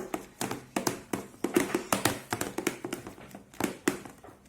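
Spoon stirring a runny, un-thickened slime of PVA glue, shaving foam and toothpaste in a large container: irregular taps and clicks, several a second.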